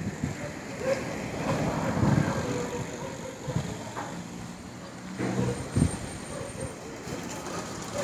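Street traffic going by: motor vehicle engines and tyre noise, with one engine standing out for a couple of seconds about five seconds in.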